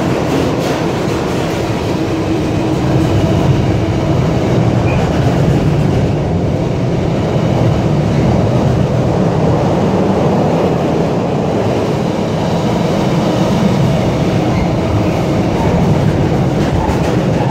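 Container wagons of a long intermodal freight train rolling past at speed: a loud, steady rumble of wheels on the rails.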